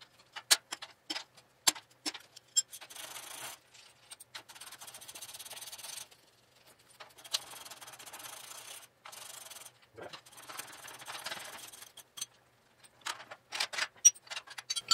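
Hand tools working metal on the Model A Ford's front suspension: scattered sharp metallic clicks and knocks, then several stretches of steady scratchy noise a couple of seconds each, then more clicks and clinks near the end.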